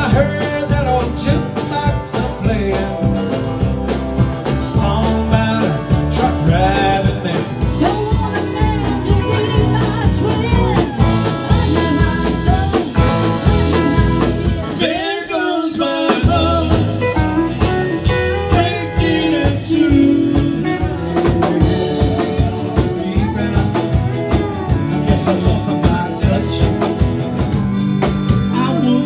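Live country band playing: electric and acoustic guitars, pedal steel guitar and drum kit, with a lead vocal. The drums and low end drop out for about a second about halfway through, then the band comes back in.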